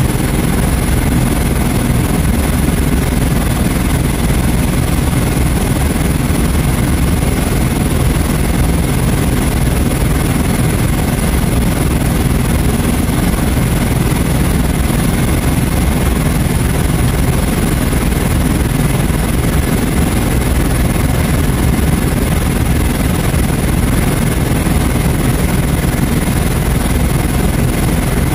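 Steady drone of an aircraft in flight, heard from inside its cabin, with a thin steady high tone above it.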